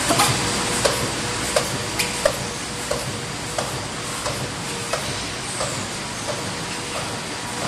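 ZYKM IV 900x2000 corrugated-board printing machine running in production: a steady mechanical noise with a faint steady hum and a sharp click repeating about every two-thirds of a second.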